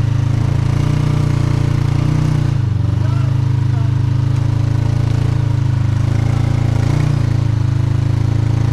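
Kawasaki KRX 1000's parallel-twin engine running at low revs as the side-by-side crawls up a rock ledge, its pitch dropping briefly a few seconds in and then holding steady.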